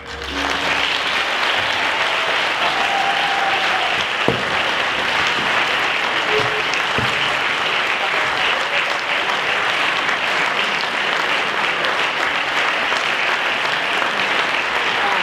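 Audience applauding, a steady sustained clapping.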